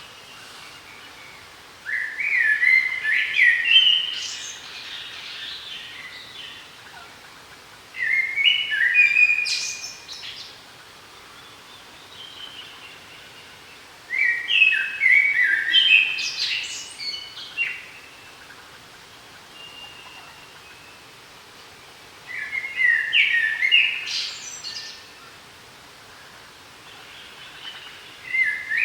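A songbird singing the same short phrase of quick notes again and again, about every six seconds, with a faint steady hiss between phrases.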